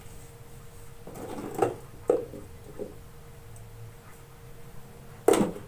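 Wet handling sounds of a kitten being washed over a plastic basin of water: a few short sounds around the middle and a louder one near the end, over a faint steady hum.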